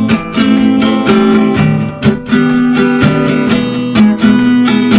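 Instrumental music led by a strummed acoustic guitar, with regular strokes, between sung verses of a song.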